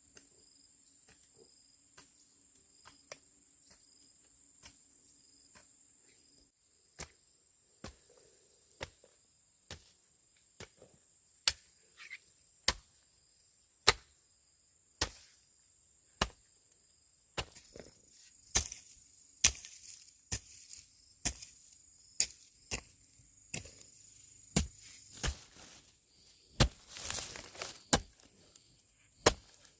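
Repeated sharp chopping strikes, about one a second, beginning some seven seconds in and getting louder toward the end.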